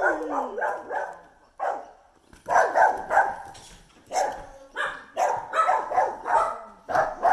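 A dog barking repeatedly in short bursts, the loudest about two and a half to three seconds in.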